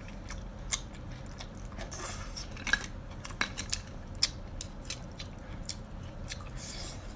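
Grilled oyster half-shells clicking and scraping as the meat is picked and scooped out by hand, with scattered sharp clicks and a couple of brief hissy sounds.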